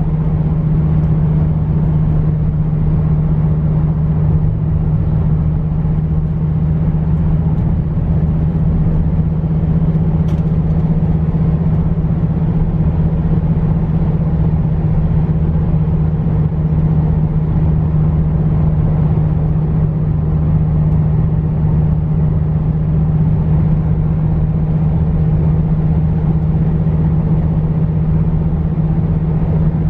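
2014 Dodge Viper GTS's 8.4-litre V10 and road noise at a steady cruise: an even, unchanging engine drone with no revving.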